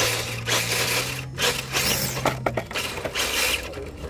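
RC rock crawler's electric motor and gears whining steadily as it climbs, while its tyres and chassis scrape and scrabble on rock, with a few sharp clicks. The whine stops about two and a half seconds in, and the scraping carries on.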